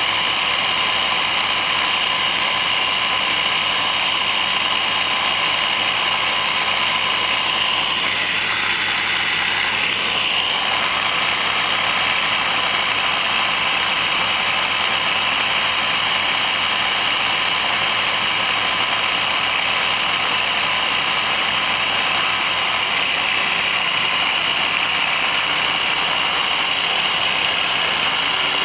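Surface-drive mud motors running steadily at high speed: a dense, even engine sound with several steady tones. The engine note shifts briefly about eight to ten seconds in.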